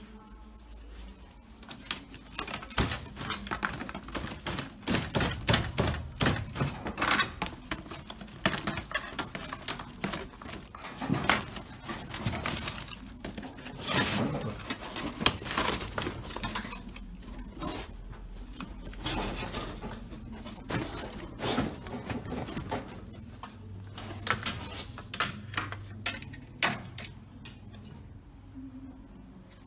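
Dogs scrabbling and rummaging after a mouse: irregular scraping, clattering and knocking, thickest in the first half.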